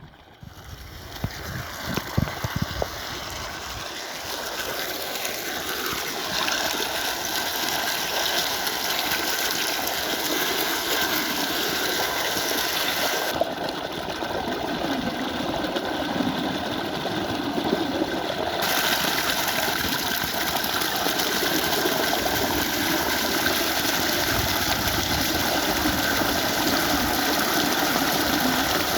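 Water running in a steady rush. It builds over the first few seconds, with a few low knocks about two seconds in, then holds even.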